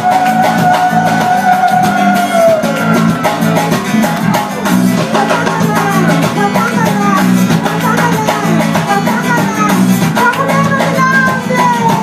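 Live band music: a singer holds a long note at the start and another near the end, which falls away, over guitars and a steady beat.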